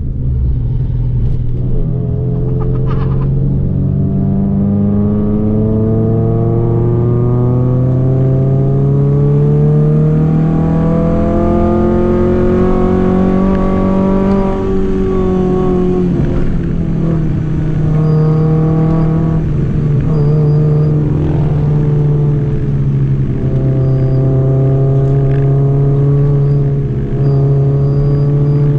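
Honda Civic Nouva's four-cylinder engine heard from inside the cabin, pulling hard uphill in low gear: the revs climb steadily for about thirteen seconds, drop around the middle of the stretch, then hold fairly steady.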